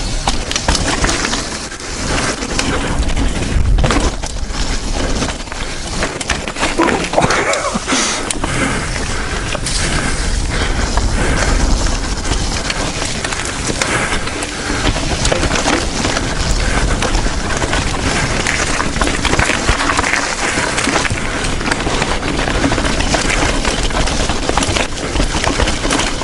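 Mountain bike descending a rough dirt trail at speed: wind rumble on the action camera's microphone, tyres rolling over dirt and stones, and frequent rattling and knocks from the chain and frame over bumps.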